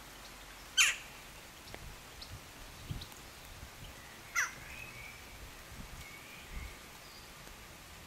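A crow-family bird cawing twice, about three and a half seconds apart, over a steady outdoor hiss, with a smaller bird chirping faintly between the caws.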